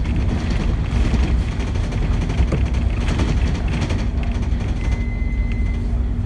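Inside a New Routemaster hybrid double-decker bus driving along, heard from the upper deck: a steady low rumble with a constant hum. A faint high whine sounds for about a second near the end.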